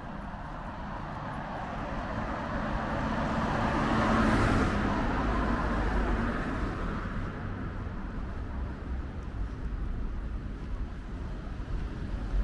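A road vehicle passing by on a city street, its noise swelling to a peak about four seconds in and fading away by about seven seconds, over a low background rumble.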